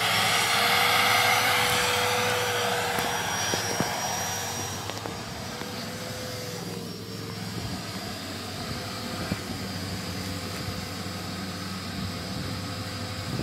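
Vacuum cleaner running with a steady whine, pulling pet hair out of a car's interior. It grows fainter after about four seconds, leaving a lower steady hum.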